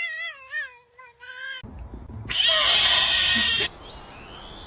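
A cat meowing in long, wavering cries that break off about a second and a half in. Then a loud hiss lasting over a second, followed by a fainter steady rushing noise.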